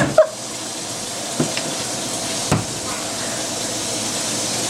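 Steady hissing noise, broken by three short, sharp knocks about a second apart.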